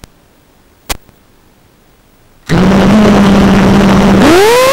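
FPV quadcopter's brushless motors spinning up as it is armed. About two and a half seconds in, a sudden loud, steady hum with propeller hiss comes in, after a couple of faint clicks. Near the end the hum rises smoothly in pitch as the throttle is pushed for takeoff.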